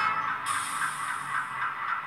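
LokSound 5 sound decoder in an HO-scale GE C36-7 model playing diesel locomotive sounds through its small speaker: a rapid rhythmic engine pulse, about four or five beats a second. The last of a horn note fades at the start, and a short hiss comes in about half a second in.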